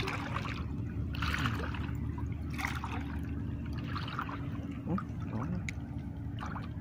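Water splashing and trickling in soft, irregular bursts about once a second, over a steady low hum.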